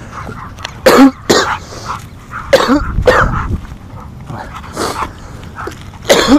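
Pit bull giving several short, sharp barks and yelps, excited by prairie dogs she cannot reach.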